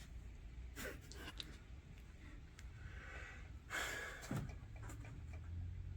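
Quiet room tone with a low steady hum and a few soft hissy rushes, the clearest one a little past halfway.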